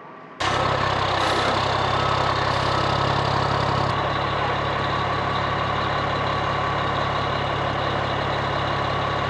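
Fire engine's engine idling close by: a loud, steady run with a deep hum and a constant hiss. It starts abruptly about half a second in, and some of the high hiss drops away about four seconds in.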